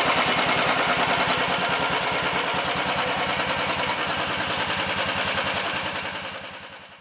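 Royal Enfield Thunderbird 350's single-cylinder four-stroke engine idling with an even, rapid beat, running on its newly fitted carburettor. The sound fades away near the end.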